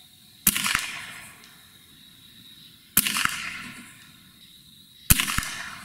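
Three shots from a Gamo Swarm Magnum 10X Gen3i .177 break-barrel gas-piston air rifle, about two and a half and then two seconds apart. Each is a sharp crack followed about a third of a second later by a fainter click. A steady high cricket trill runs underneath.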